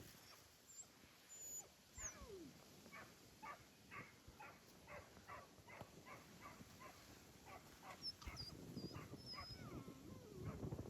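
Faint sounds from a dog: a short falling whine, then a run of quick short sounds, about two or three a second, for several seconds.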